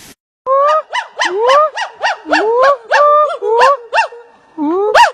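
Male hoolock gibbon calling: after a brief silence, a fast run of loud whooping notes, about two to three a second, each sliding up in pitch and some rising and falling sharply, with one short break near the end.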